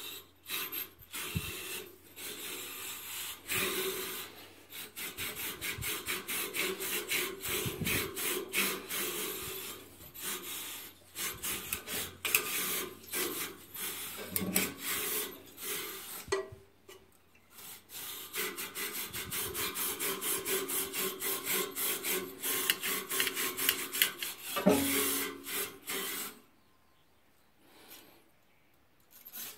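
Steel wire tube brush on a rod scraping up and down inside the fire tubes of a NIBE Biawar Pellux 200 pellet boiler, brushing off soot, a quick rasping scrub of several strokes a second. It pauses briefly a little past halfway and stops shortly before the end.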